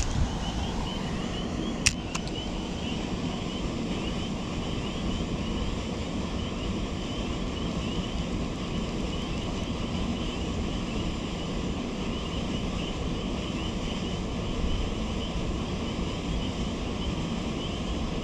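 Wind buffeting the microphone in a steady low rumble, over a continuous high chirping chorus. One sharp click comes about two seconds in.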